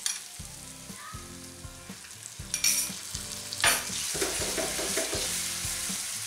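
Silicone spatula stirring and scraping a thick mixture of ground poha, ghee and sugar syrup in a nonstick pan over the heat, the mixture sizzling. Two sharper scrapes come in the middle, and the sizzling gets louder after the second as the food colour is stirred in.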